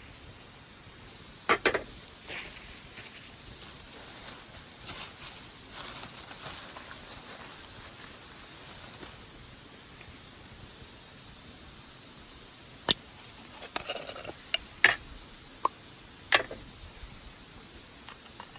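Wood fire burning in a Picogrill-style fire pit, crackling over a steady hiss, with a few sharp pops: one about a second and a half in and a cluster of five or six near the end.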